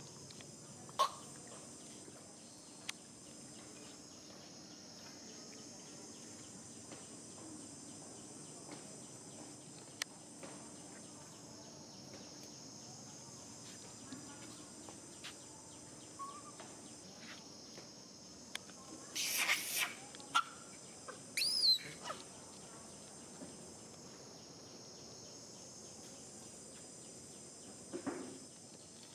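High-pitched insect chorus buzzing steadily, fading out and coming back every few seconds, with scattered sharp clicks. Past the middle, a few short, loud, shrill animal calls glide up and down in pitch.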